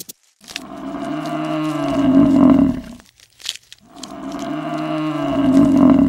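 A cow mooing: two long, low calls, each swelling louder. The first starts about half a second in, and the second starts near the four-second mark and is still going at the end.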